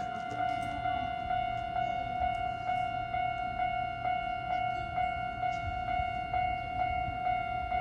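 Japanese railway level-crossing warning bell ringing: one steady bell tone struck again a little more than twice a second, the signal that the crossing is closed for a train.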